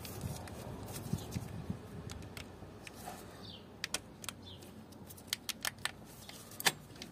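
Sharp plastic clicks and light handling rattles as hands pull and shift the hoses and wiring loom around an engine's tandem pump. The clicks come in a quick run from about four seconds in, and the loudest falls near the end.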